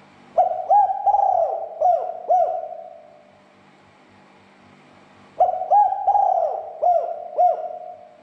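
Spotted dove cooing: two call phrases about five seconds apart, each a quick run of short rising-and-falling coos that trails off into a longer held note.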